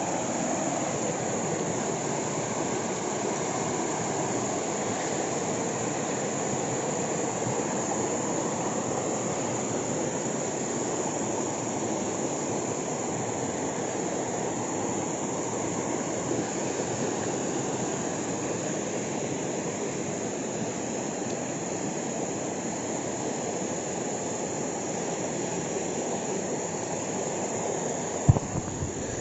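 River water rushing steadily over rocks, with a steady high insect drone above it. A sharp click comes near the end, and the rush drops off after it.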